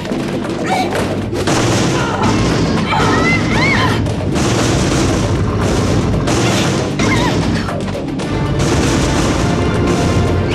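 Cartoon action soundtrack: music under repeated booms and crashes, like blows against a metal locker. A few short rising and falling squeaky glides come about three seconds in.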